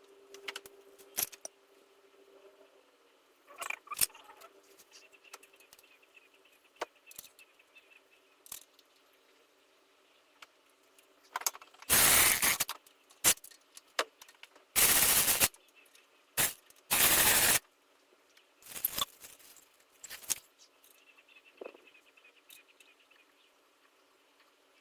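Power tool running bolts in short bursts: three loud bursts of under a second each about halfway through, then a couple of shorter ones, between small clicks and clinks of tools and metal parts being handled.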